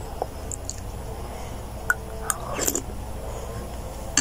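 A child eating chocolate champorado cereal with a metal spoon from a plastic bowl: quiet chewing and a few light spoon clicks, with one brief louder noise about two and a half seconds in.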